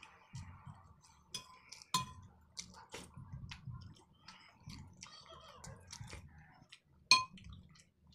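Close-up eating sounds: chewing and small wet mouth clicks, with a metal spoon clinking sharply against a ceramic bowl twice, about two seconds in and again near the end.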